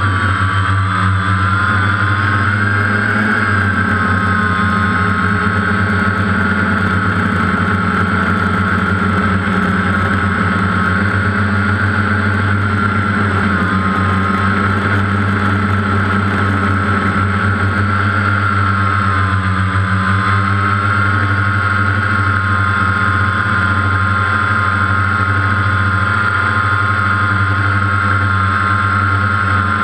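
DJI Phantom quadcopter's electric motors and propellers running in flight: a loud, steady whine that wavers slightly in pitch.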